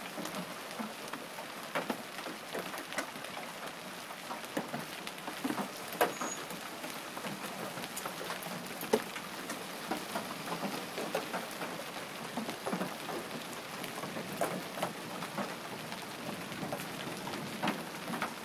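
Hailstorm: large hailstones pelting down, a steady hiss of falling hail with many sharp, separate impacts scattered irregularly throughout.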